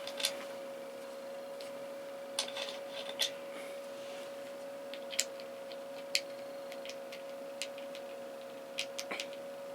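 Scattered small clicks and taps of hands working a microphone clip loose, over a steady faint hum.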